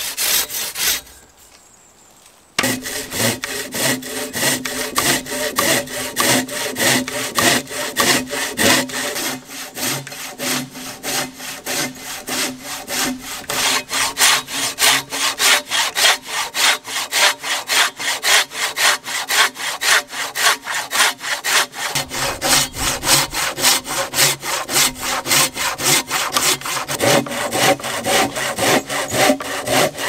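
Large coarse-toothed folding saw crosscutting a log by hand in steady, rapid back-and-forth strokes. The sawing starts about two and a half seconds in, after a brief sound and a short pause.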